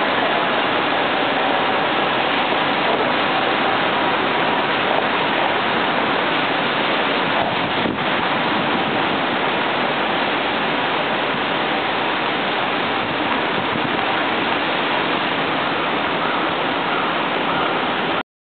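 Rain falling steadily on a city street, a dense even hiss that cuts off suddenly near the end.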